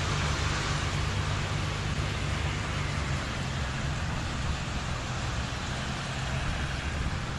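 Steady rushing of rain and wind, with a low car engine hum that fades about three seconds in.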